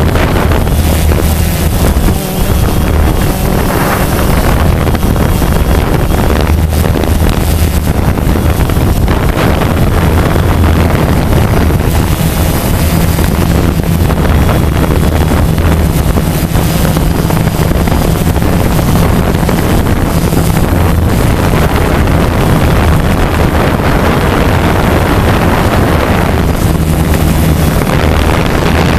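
Camera drone's motors and propellers humming steadily in flight, with wind rushing over its microphone.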